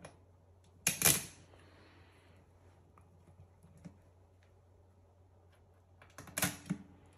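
Small metal bolts clicking and clinking against the stainless steel door as they are dropped into its mounting holes, in two short clusters: about a second in and again near the end.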